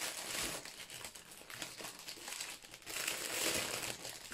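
Clear plastic packaging sleeve crinkling as it is handled and pulled open by hand, an irregular rustling crackle that swells at the start and again about three seconds in.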